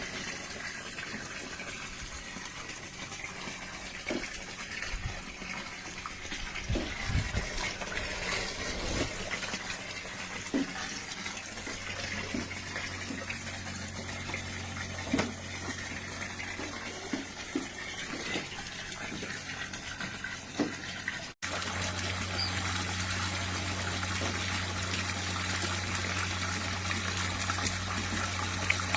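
Water splashing and pouring steadily from a Bestway Lay-Z-SPA LED waterfall into a hot tub. About halfway in a steady low hum joins the sound, and about two-thirds of the way in the sound breaks off for an instant before the water and hum carry on.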